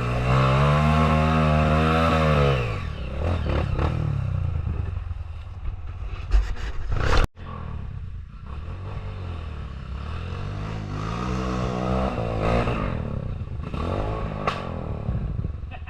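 Off-road motorcycle engine revving with a wavering pitch, then dropping back. There is clattering and scraping over rough ground, and a few sharp knocks about six to seven seconds in. The engine climbs again near the end.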